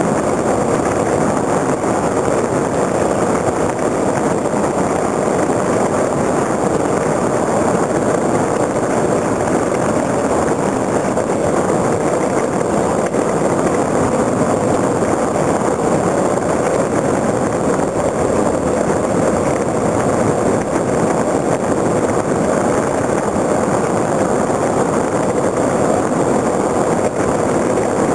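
Onboard sound of a soapbox cart coasting fast downhill: a steady, loud rushing roar of its wheels on rough asphalt mixed with wind, with no engine.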